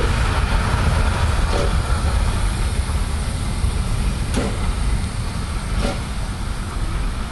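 Steam locomotive 475.179 (ČSD class 475.1) rolling slowly past and away, a heavy low rumble with a few sharp clanks from the wheels, fading slightly as it goes.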